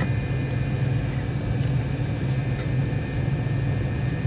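Steady cabin noise of a jet airliner taxiing, heard from inside the cabin: an even low hum with thin, steady high whines above it.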